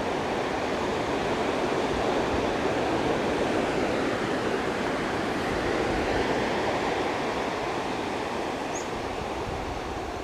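Steady rushing noise of surf and wind, with no distinct events.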